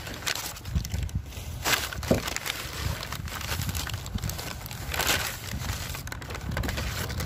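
Packaging being handled and unwrapped by hand: crinkling, rustling wrapping with a few louder crackles, the strongest about two and five seconds in.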